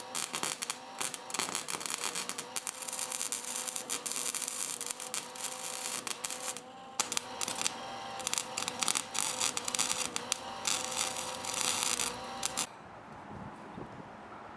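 Lincoln Weld-Pak 100 wire-feed welder laying tack welds: the arc crackles with a faint steady hum underneath, in two runs with a short break about six and a half seconds in, and stops about two seconds before the end.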